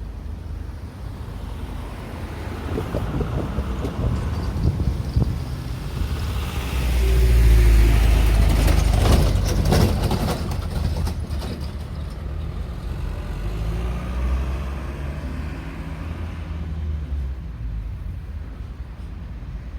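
Road traffic passing close by: a heavy vehicle swells into a loud pass about seven to ten seconds in, then fades back to the low drone of engines.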